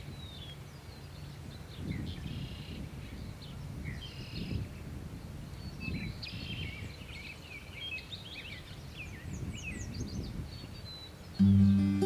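Many birds chirping and calling, short whistles and sweeping notes, over a low outdoor rumble like wind. Near the end, strummed acoustic guitar music comes in loudly.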